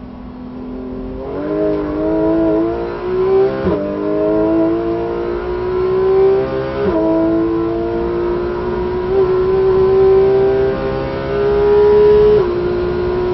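Porsche 911 GT3 RS (991.1) naturally aspirated flat-six heard from inside the cabin, holding a low steady note for about a second out of a slow corner, then accelerating hard with its pitch climbing. Three quick upshifts drop the pitch sharply, about four, seven and twelve seconds in.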